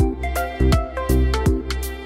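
Background music: an instrumental track with a steady beat of sharp hits over a held bass line and pitched notes.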